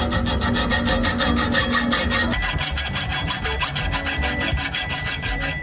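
Reciprocating saw cutting through steel exhaust pipe: an even rasping at about eight strokes a second that stops abruptly at the end.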